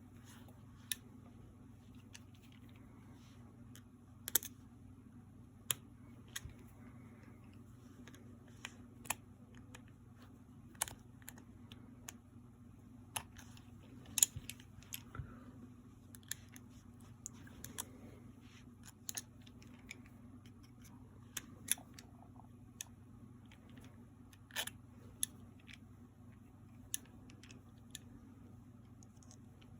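Irregular sharp clicks and light taps of small metal gun parts being worked by hand, as a pin and the safety switch of an Erma LA22 .22 rifle are pushed and pried loose. A steady low hum lies underneath.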